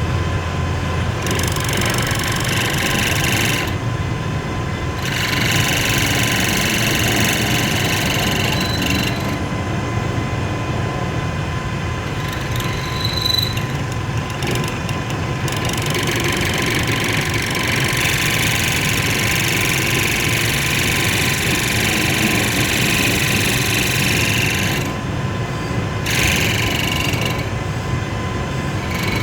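A lathe running, with a steady hum and a constant whine. A higher hissing noise comes and goes several times over it.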